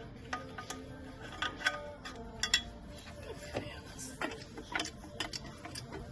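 Hand tools clicking and clinking on metal at irregular intervals while a motor mount's bolts are worked on, a few sharp clicks standing out.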